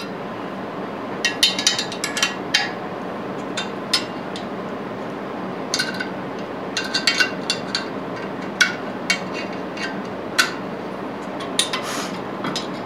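Wrench working the bolts that hold the cast-iron motor mount plate onto an old single-phase Baldor 5 hp motor: sharp metallic clicks and clinks in short irregular clusters. A steady background hiss runs underneath.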